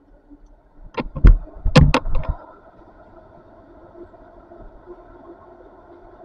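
About six sharp bangs in quick succession about a second in, followed by the faint steady hum of an idling engine.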